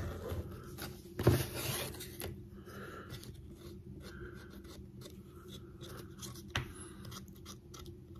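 Small hand edge tool scraping and shaving along the edges of thick dyed leather: faint scratches and light clicks, with one louder knock about a second in.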